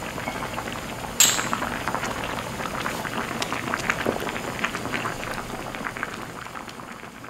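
Spicy rockfish stew (ureok maeuntang) bubbling at a rolling boil in a wide pan, a busy stream of small pops and bursting bubbles. There is a sharp clink about a second in, and the bubbling fades toward the end.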